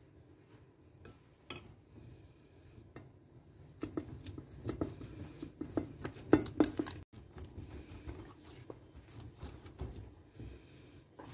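Metal spoon clinking against a steel pot, then irregular pats, squelches and knocks as hands knead dough in the pot, busiest from about four to seven seconds in.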